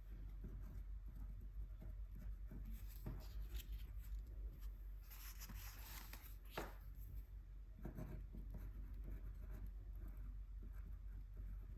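Paintbrush laying acrylic gouache onto paper for swatches: a faint series of soft brush strokes, busiest about five to six seconds in, with one sharp click about six and a half seconds in.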